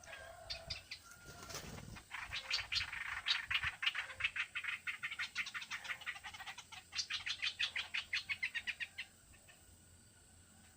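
A bird giving a long, fast chattering call of sharp repeated notes, about five or six a second, with a short break in the middle. A brief rustle comes just before it starts.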